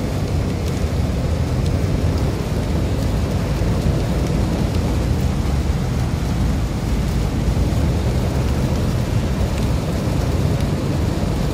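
Steady low rumble inside a car's cabin as it drives in heavy rain: tyres on the wet road and rain on the car, with faint scattered raindrop ticks.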